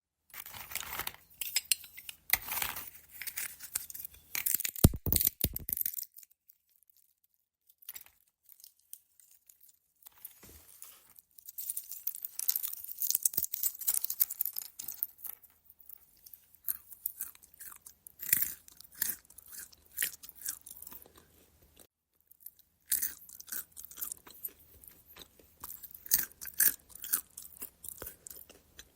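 Walnut shells cracking: bursts of sharp cracks and crackling crunches, with two short pauses between the bursts. The loudest cracks come about five seconds in.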